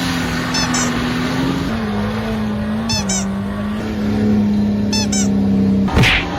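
Off-road vehicle engine held at high, steady revs, its pitch stepping down twice, with short high squeaks every couple of seconds and a sudden sharp knock about six seconds in.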